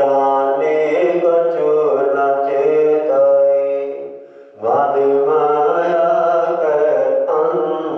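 A man chanting Sikh scripture in long, held melodic phrases, one voice whose pitch bends up and down. He pauses for a breath about four seconds in, then carries on.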